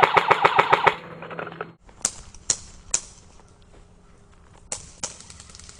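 Airsoft gun firing a fast full-auto burst of about nine shots in a second, followed by a few scattered single sharp snaps of airsoft shots.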